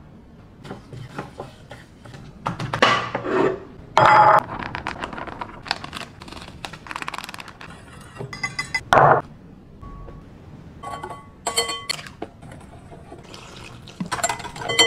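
Mixing-bowl prep sounds: dry flour and seasoning poured into a ceramic bowl, bowls and utensils clinking, and milk poured into a bowl with a wire whisk in it. It comes as a string of short pours and rustles, with several ringing clinks.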